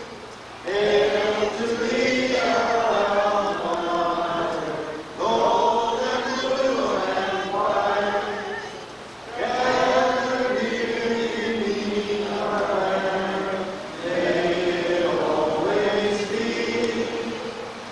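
Singing: a slow song in long held phrases of about four seconds each, with short breaks between them.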